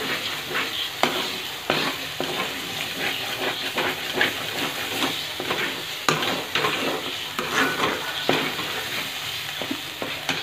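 Spice paste (masala) sizzling in oil in a black kadai, stirred and scraped around the pan with a steel spatula, giving a steady frying hiss broken by irregular scrapes and taps. The masala is fried to the stage where the oil has separated from it.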